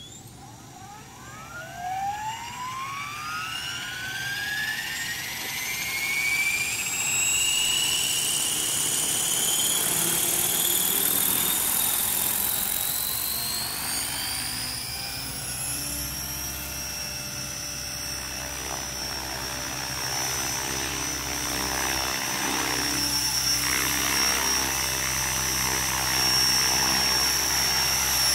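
Electric RC helicopter, a Hobby King 550 converted to 600-size main blades and flybar paddles, spooling up: a whine rising steadily in pitch for about fifteen seconds as the rotor comes up to speed, then holding a steady high whine over the rotor drone for the hover.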